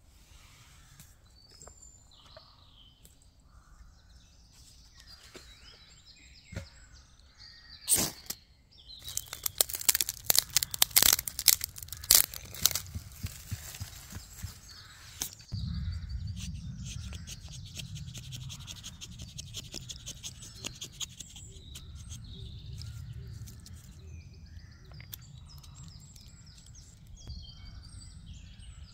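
Small dry twigs snapping and crackling as they are broken and piled onto a pine-needle tinder bundle, with a dense run of snaps a third of the way in. Small birds chirp throughout, and a low steady rumble sets in about halfway.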